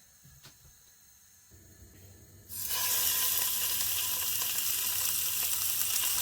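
Quiet at first, then about two and a half seconds in a sudden loud sizzle starts, with a steady hiss: beef steak frying in a little hot oil in a pan.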